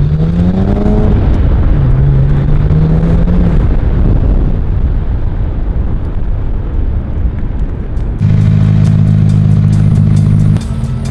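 BMW 335i turbocharged straight-six revved twice, rising in pitch, then burbling and crackling through the exhaust as it comes off the throttle. About eight seconds in, a steady low drone with regular ticks takes over.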